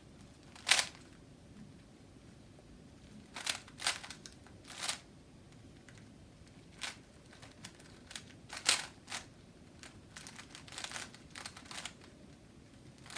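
Plastic Rubik's Cube being turned by hand: scattered sharp clicks of the layers snapping round, with a quicker run of turns near the end as the solve closes out.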